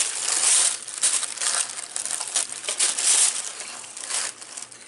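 Tissue paper crinkling and rustling as hands pull it back inside a cardboard box, loudest at first, then in short irregular bursts that fade toward the end.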